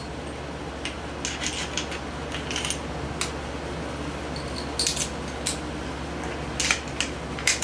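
Scattered light clicks and metallic clinks of hand tools and small parts being handled while a small wooden block is removed from the radio case, over a steady low hum.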